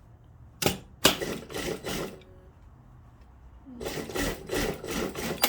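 Fabric and tools being handled at a sewing table: a sharp click, then rustling in two bursts, each with clacks.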